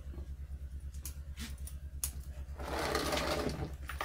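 Scissors snipping shoots and leaves off a young bonsai: a few sharp clicks, over a steady low pulsing hum of about six pulses a second. A louder rush of noise about a second long comes just past the middle.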